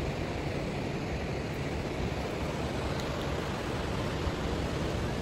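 Steady rush of surf along a sandy beach.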